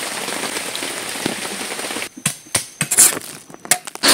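Rain falling on forest foliage, a steady hiss that cuts off about two seconds in. Scattered clicks and knocks follow, and a blender motor starts right at the end.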